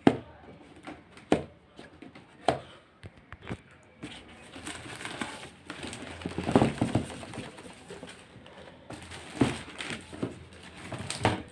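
Parcel wrapping being torn open and handled: a few sharp knocks and snaps in the first few seconds, then a longer stretch of rustling and crinkling of the packing and a plastic bag as a shoe box is pulled out.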